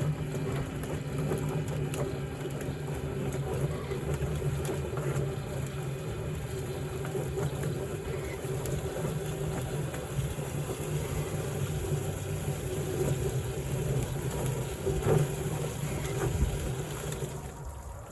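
A motor running with a steady hum, stopping shortly before the end.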